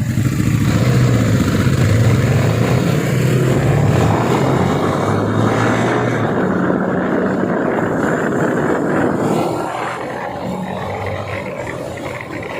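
Kawasaki Ninja 250 motorcycle with an Akrapovic aftermarket exhaust running under way, over a steady rushing noise. The engine note shifts pitch about halfway, and the whole sound eases off about three-quarters of the way through.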